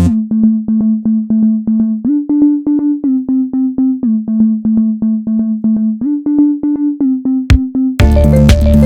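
Background electronic music: a stripped-back passage of short repeated electric-piano notes, about four a second, over a held tone that steps in pitch every two seconds. A sharp hit comes near the end, and the full beat with drums returns just before the end.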